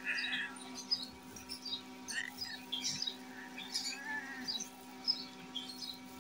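An injured cat cries out briefly at the start as her wound is dabbed, then small birds chirp repeatedly in the background over a steady hum.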